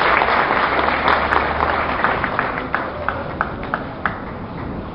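Crowd applauding, dense at first, then thinning after about two seconds into scattered single claps that die away.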